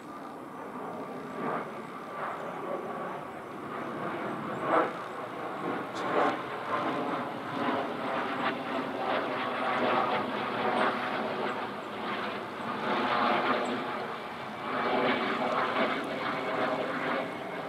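Small twin-engine business jet passing overhead, its engines a steady rushing noise with a faint whine. The noise grows louder over the first few seconds and then wavers.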